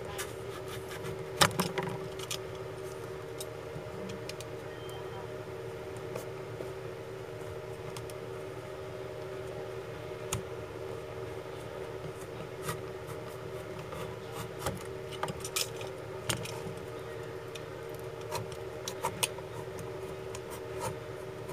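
Scattered clicks, taps and rubbing from hands handling and working a shoe sole, with one sharper knock about a second and a half in, over a steady low hum.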